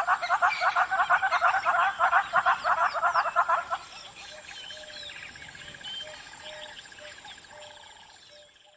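Hornbill calling in a fast run of loud cackling notes, about six a second, that stops about four seconds in. Fainter chirps from other birds and a steady high trill continue behind it, then fade out at the end.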